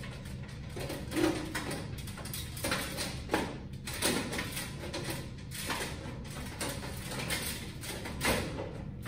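Metal parabolic louver grid being fitted into a 2x2 fluorescent troffer's door frame: a string of irregular light clicks, knocks and rattles of thin sheet metal.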